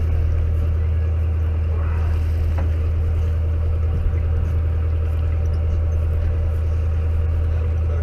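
Fishing boat's engine running with a steady deep hum.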